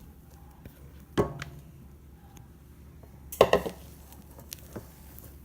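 Spatula and mixing bowl knocking and scraping while batter is folded, with a sharp knock about a second in and a louder clattering scrape just past the middle.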